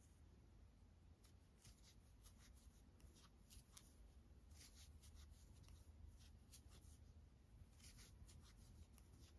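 Faint, scratchy rustling and light, irregular ticks of a 4 mm metal crochet hook pulling aran yarn through stitches while single crochet increases are worked, over a low room hum.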